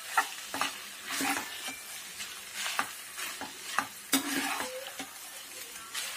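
Perforated steel spoon stirring and tossing cooked basmati rice in a nonstick kadai, with irregular scrapes and clicks against the pan over the sizzle of hot ghee.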